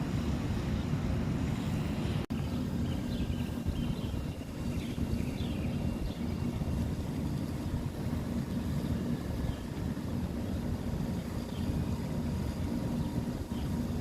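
Steady low rumble of wind buffeting the microphone, with a few faint short high chirps a few seconds in.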